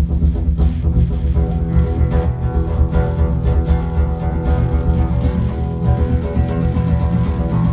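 Live guitar music with a strong bass: an instrumental passage of the song between sung verses, chords strummed in a steady rhythm.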